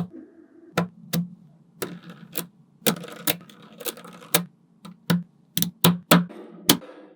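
Small magnetic balls clicking as they snap together, about a dozen sharp clicks at an uneven pace.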